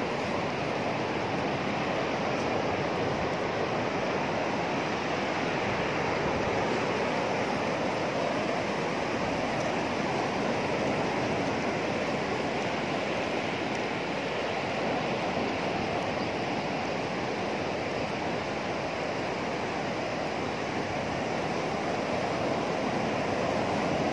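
Sea surf breaking along a sandy shore: a steady, even rushing of waves.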